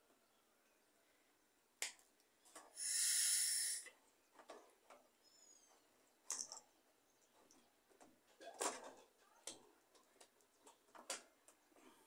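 Scattered sharp plastic clicks and knocks from handling a washing machine's plastic water inlet solenoid valve, with one loud hiss lasting about a second near three seconds in.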